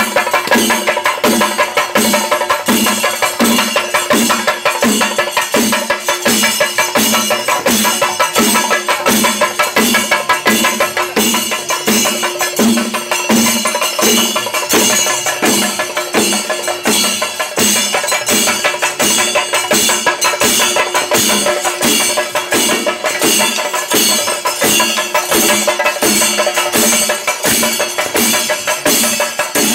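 A Kerala chenda ensemble: several cylindrical chenda drums beaten with sticks in a fast, steady rhythm, playing on without a break.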